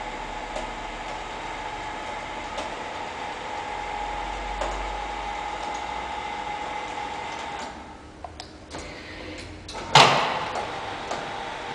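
Electric drive of an automatic patient-transfer trolley running with a steady whine as its conveyor platform moves the patient. The drive stops about two-thirds of the way in, followed by a few light clicks and a sharp clack, the loudest sound, then a quieter hum resumes.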